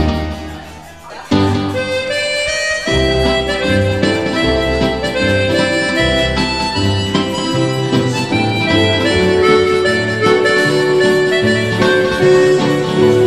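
Instrumental background music with a sustained melody over a walking bass line. The music fades down at first, and a new passage starts sharply just over a second in.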